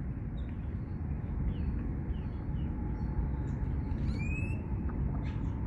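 Steady low rumbling noise with a short, high bird chirp of a few falling notes about four seconds in, and fainter quick chirps earlier.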